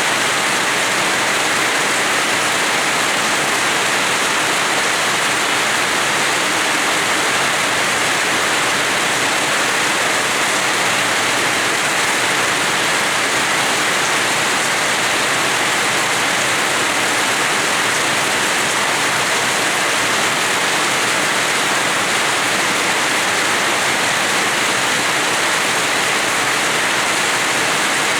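Rain falling steadily on a house yard, an even hiss that holds unchanged throughout, with no thunder or single drips standing out.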